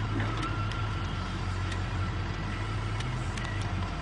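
An engine running steadily, a constant low drone with a hum of fixed low tones and a few faint clicks.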